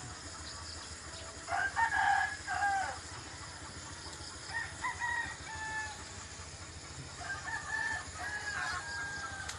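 A rooster crowing three times, the first call the loudest, about one and a half seconds in.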